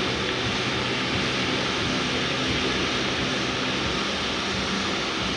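French steam train at close range, a steady hiss and rumble with a faint low hum and no clear change or whistle.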